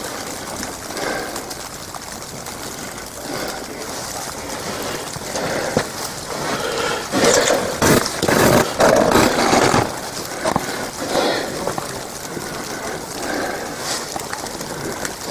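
Wind buffeting the microphone in a storm of wet snow: a steady rushing with stronger gusts from about 7 to 10 seconds in.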